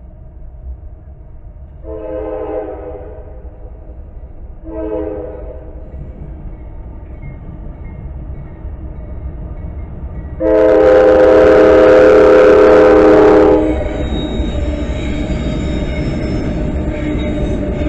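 CSX freight locomotive's multi-chime air horn blowing for a grade crossing: two blasts of about a second each, then one long, much louder blast as the train nears. After the horn stops, the lead diesel locomotives rumble past at the crossing.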